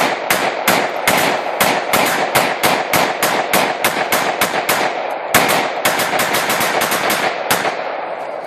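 AR-15 rifle firing rapid semi-automatic shots at a television, about three to four shots a second, each with a ringing echo. There is a brief pause about five seconds in, and the string stops near the end.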